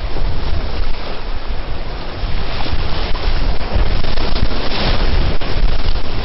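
Whitewater rapids rushing and splashing around a kayak as it runs through them, with heavy rumble of wind and water buffeting the microphone. It gets louder about halfway through as the boat drops into the foam.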